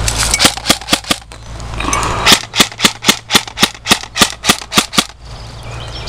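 Airsoft gun firing a quick series of sharp single shots: a few at the start, then a steady run of about a dozen at roughly four a second, stopping about a second before the end.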